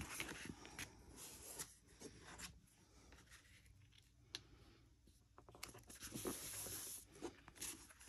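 Faint rustling and light taps of cardstock being handled: a paper insert pressed flat inside a folded card with the fingers, then the card folded shut.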